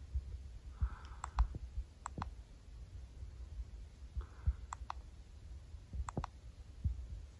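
Handling noise on a handheld camera: sharp clicks and taps, mostly in pairs, about four pairs, over low bumps and rumble on the microphone.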